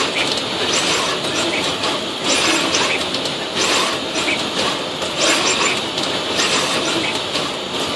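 Automated lens inspection machine running: a steady mechanical hiss and rumble with surges roughly once a second.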